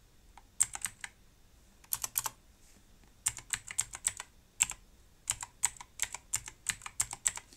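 Typing on a computer keyboard: irregular runs of quick keystrokes separated by short pauses.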